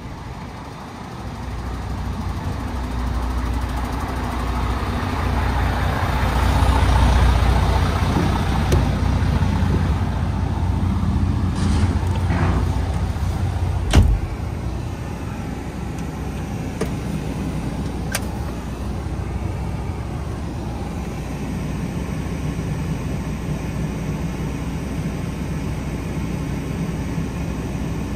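A 2021 MAN TGX 510 truck's 12.4-litre straight-six diesel running with road noise, growing louder over the first seven seconds or so, then settling to a steady drone. A single sharp knock about halfway through.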